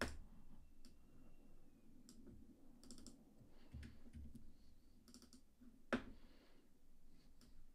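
Faint, scattered clicks of a computer mouse and keyboard, with a louder click about six seconds in.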